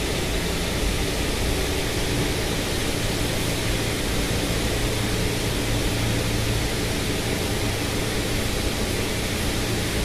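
Steady background noise: an even hiss over a constant low hum, unchanging throughout.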